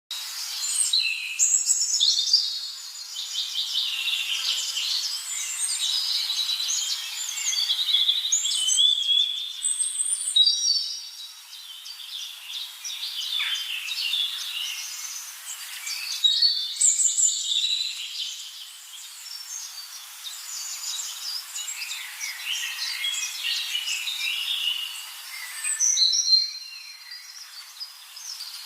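A dense chorus of many birds singing at once: overlapping high chirps, whistles and trills, the mix changing abruptly a few times.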